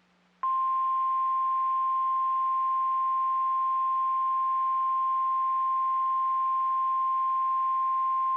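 NOAA Weather Radio's 1050 Hz warning alarm tone: a single steady high tone that starts about half a second in and holds unbroken at one pitch. It signals that a warning broadcast, here a severe thunderstorm warning, follows.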